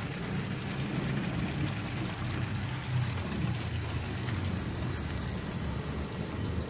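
Steady rush and splash of water from a sand water filter being backwashed: flush water running out through its drain pipe, still carrying out mud sediment.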